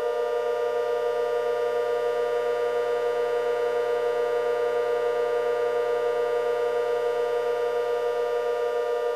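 Outdoor warning sirens holding a steady, eerie drone: several pitches sounding at once as a dissonant chord, with a slight rapid wavering and no rise or fall.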